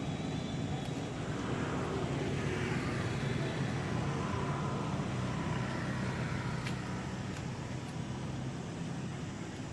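Steady low rumble of road traffic, a vehicle swelling and fading as it passes.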